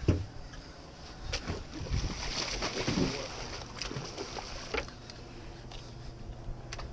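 Fishing boat's engine running with a low steady hum, with a stretch of hiss from about two to four seconds in and a few scattered knocks and clatters.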